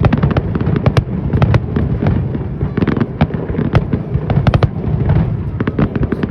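Fireworks display: a rapid, irregular string of sharp cracks and bangs, several a second, over a continuous low rumble.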